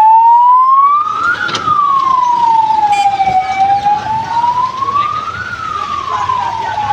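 Ambulance siren wailing, its pitch slowly rising and falling about once every four seconds.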